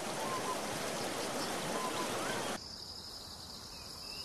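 Outdoor nature ambience: an even, soft rushing hiss with a couple of faint short whistles. About two and a half seconds in it cuts abruptly to a quieter, steady high-pitched insect drone.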